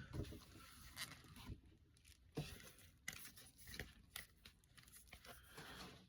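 Faint rustling and tearing of paper packaging being unwrapped by hand, with scattered small clicks and crinkles.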